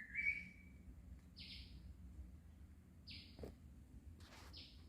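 Faint forest bird calls: a short whistled note at the start, then three brief buzzy calls about a second and a half apart.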